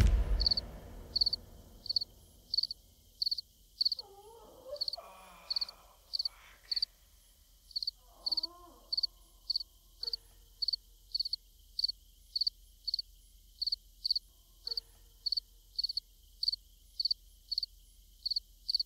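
A cricket chirping steadily: short, high chirps at an even pace of about three every two seconds, after a last bit of music dies away at the start.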